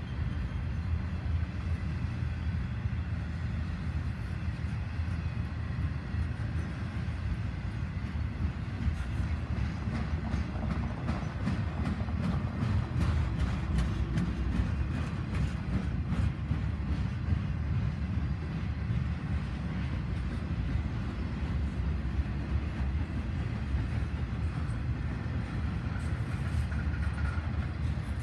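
CSX intermodal freight train's double-stack container well cars rolling past, a steady low rumble of steel wheels on rail. Wheel clicks over the rail joints come thickest through the middle.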